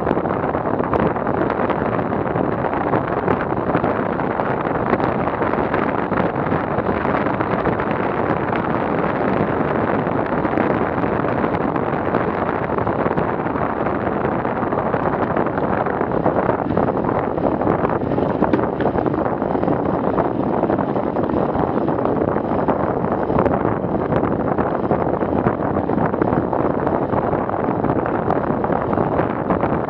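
Steady wind noise rushing over a bike-mounted Garmin VIRB action camera's microphone while cycling at about 25–35 km/h on an asphalt road.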